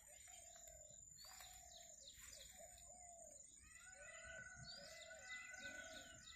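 Faint birdsong: a run of short, arched, low calls repeating several times a second, with scattered higher chirps over a steady thin high tone.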